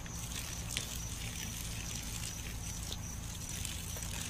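Water from a garden hose spraying and spattering steadily, with a low steady rumble underneath.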